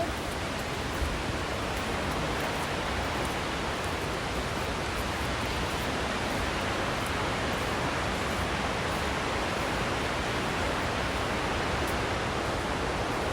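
Creek water rushing over a waterfall: a steady, even rushing noise.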